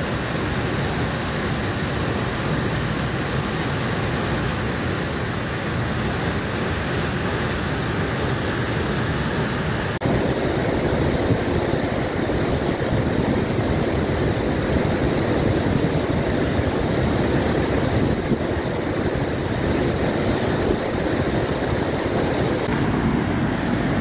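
Lasifashaj waterfall, a powerful river cascade, pouring over rock in a loud, steady rush of water. About ten seconds in the sound changes abruptly, with less high hiss and a fuller, deeper rush.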